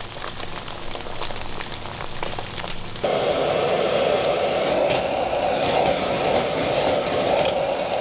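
Turnip-cake slices sizzling and crackling in hot oil in a wok. About three seconds in, the loud, steady rush of a gas wok burner's flame comes in abruptly under the sizzle.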